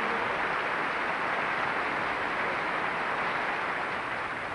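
Concert audience applauding, a dense, steady clapping that fades near the end.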